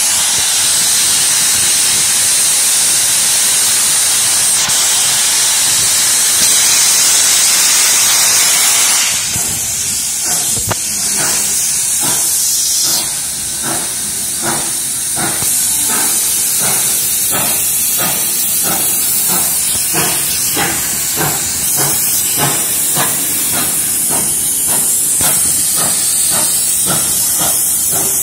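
NSW C38-class Pacific steam locomotive 3801 pulling away. For the first nine seconds or so steam hisses steadily from the cylinder drain cocks; after that come the exhaust chuffs, about two a second, with hiss between them.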